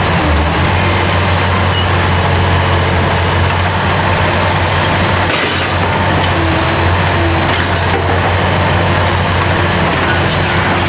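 Liebherr R 960 crawler excavator's diesel engine running steadily under load as its hydraulics work the arm and bucket while digging, a constant low engine drone.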